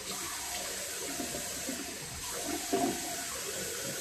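Bathroom tap running into a sink while cold water is splashed on the face to rinse off after a shave. The water runs steadily with irregular splashes, loudest nearly three seconds in.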